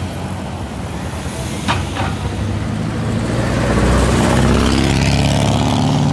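Road traffic going by, with a heavy engine growing louder from about halfway through as it comes closer. Two short sharp clicks come just before that.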